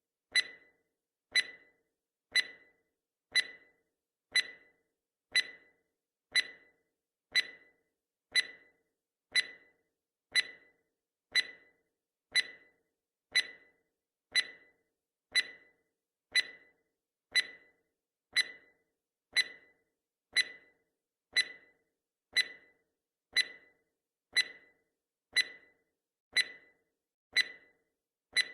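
Countdown timer's clock-tick sound effect: one sharp tick each second, steady and evenly spaced, each dying away quickly.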